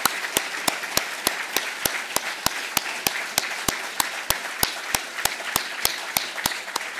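Audience applauding, with one pair of hands clapping close to the microphone, loud and steady at about three claps a second.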